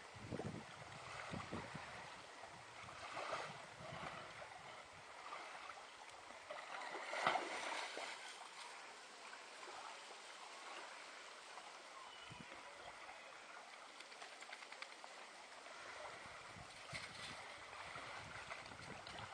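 Gentle water sloshing and splashing in the shallows as dogs wade and swim, with a louder splashy burst about seven seconds in. Gusts of wind buffet the microphone near the start and end.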